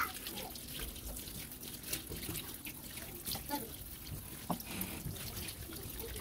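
Water running and splashing in a kitchen sink as food is rinsed, with scattered small clicks and knocks.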